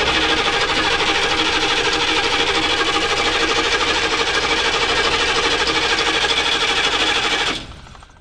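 A 1995 military HMMWV's V8 diesel being cranked by its starter, turning over with a fast, even chug but never firing, until the starter is released about seven and a half seconds in. It still does not start with new glow plugs fitted, which the owner takes for a problem that is probably with the fuel.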